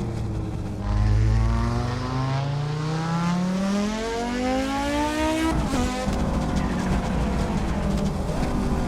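Audi Sport quattro S1's turbocharged five-cylinder engine accelerating hard, its pitch rising steadily for several seconds, then lifting off abruptly about five and a half seconds in with a short burst of noise before running on at a lower note.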